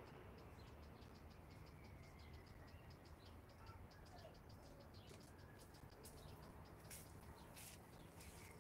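Near silence: faint outdoor ambience, a steady low rumble with soft, short high-pitched ticks scattered through it.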